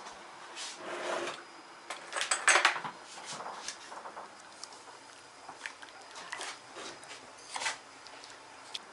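Scattered rubbing and scraping handling noises with light clicks and taps. The loudest is a short scrape about two and a half seconds in.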